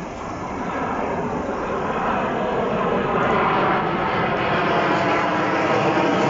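Military fighter jet flying low overhead, its engine noise a steady rushing that grows louder as the jet approaches.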